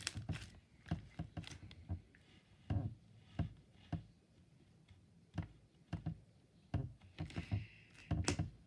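Slime with foam balls in it being squeezed and worked by hand, giving irregular small pops and clicks as air bubbles in it burst.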